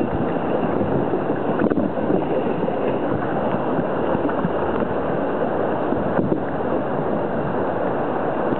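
Steady rush of river water pouring over a low weir and churning around an inflatable canoe, with paddle strokes in the water.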